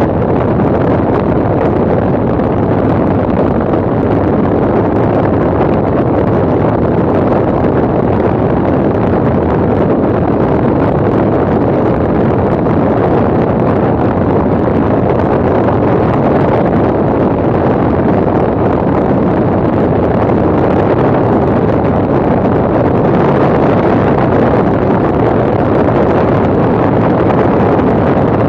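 Steady, loud rush of wind buffeting the microphone of a camera mounted on the outside of an ultralight aircraft in flight at about 160 km/h, blended with the aircraft's engine and propeller noise into one even drone.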